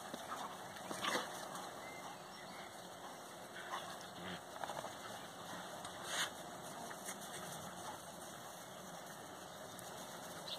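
Collies at play, with a few short dog vocal sounds over a steady background hiss. The loudest come about a second in and about six seconds in, with smaller ones near the middle.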